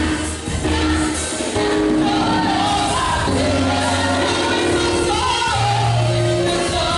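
Church choir singing held notes over instrumental accompaniment with a steady bass line.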